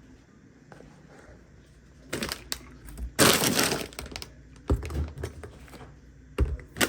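Groceries being handled and set down: a run of knocks and clatter, loudest in a rattling stretch about three seconds in, then a few separate thuds.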